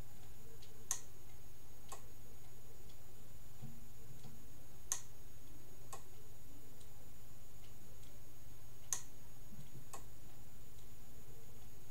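Omron relay switching a 300 W halogen heater in a one-second-on, three-seconds-off cycle. A sharp click as it switches on is followed about a second later by a softer click as it switches off, and the pair repeats every four seconds, three times in all, over a steady low hum.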